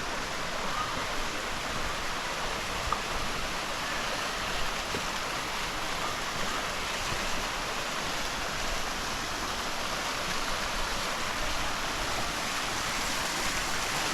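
Steady rush of a waterfall and its stream, an even hiss of falling and running water.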